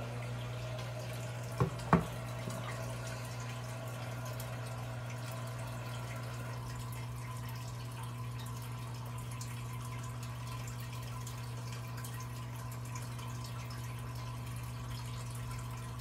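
Aquarium filter or pump running with a steady low hum and a faint trickle of water. Two short knocks come close together about two seconds in.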